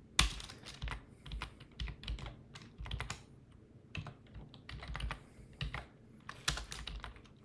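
Typing on a computer keyboard: irregular runs of keystroke clicks, with a brief lull about halfway through.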